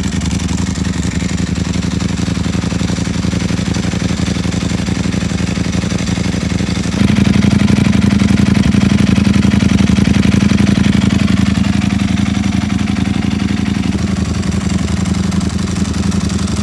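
Ducati Panigale V4 S's V4 engine idling through an Akrapovic exhaust. About seven seconds in, the engine note steps up and holds higher, then eases slightly.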